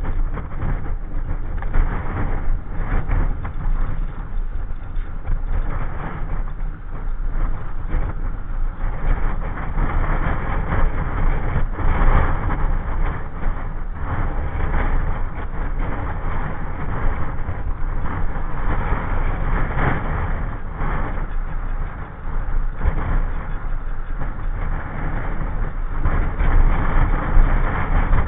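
Steady rush of wind buffeting the microphone, mixed with tyre and road noise, while riding an open vehicle down an asphalt road at speed.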